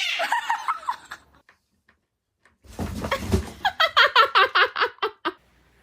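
A sudden noisy burst, then a low thump and a person laughing in a quick run of about eight short pulses.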